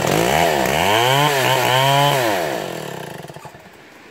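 Stihl 070 two-stroke chainsaw running hard while cutting into a hardwood log, its engine pitch swinging up and down several times under load. A little over two seconds in, the engine note falls and fades away.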